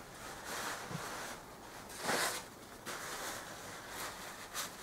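Quiet handling noises at a workbench: rustling as parts and rags are moved about, with a swish about two seconds in and a couple of light clicks near the end.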